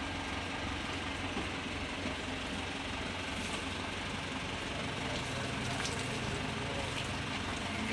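Police bus engine idling with a steady low rumble.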